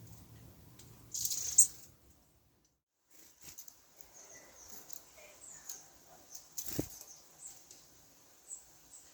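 Small songbirds at a balcony feeder: a brief flutter about a second in, then scattered thin high call notes and light taps, with one sharper knock near seven seconds.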